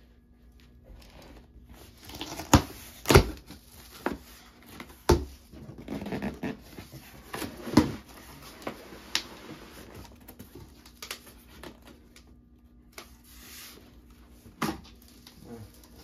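Cardboard shipping carton being opened by hand: flaps pulled back and pressed flat with rustling and scraping, broken by several sharp thuds and knocks, the loudest two about three seconds in.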